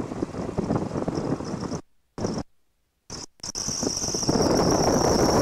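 Cabin noise of a Piper J-3 Cub in flight, its 65-horsepower Continental A-65 engine and the wind making a steady rush that drops out to silence several times in the first few seconds. From about four seconds in it comes back louder and steady, with a thin high whine on top.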